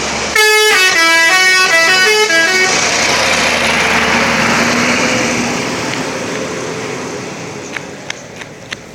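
ALS intercity bus's multi-trumpet telolet air horn playing a quick stepping tune of several notes for about two seconds, followed by a broad rushing noise that fades away over several seconds.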